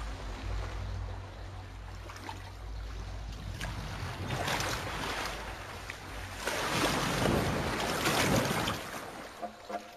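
Water splashing and churning as caimans thrash at a capybara carcass in shallow water. It builds from about four seconds in, is loudest in the second half, and falls away near the end.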